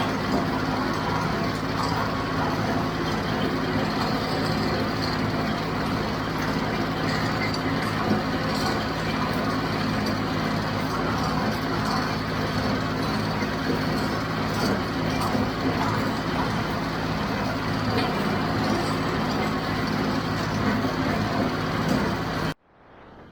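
John Deere 5055 tractor's diesel engine running steadily with a John Deere 348 square baler working behind it; the sound cuts off suddenly near the end.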